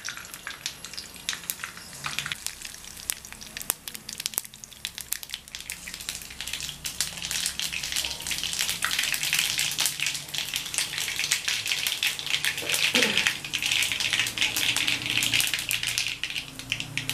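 Mustard seeds spluttering and popping in hot oil in an iron kadai. Scattered sharp pops at first, building from about six seconds in into a dense, steady crackling sizzle as the seeds burst.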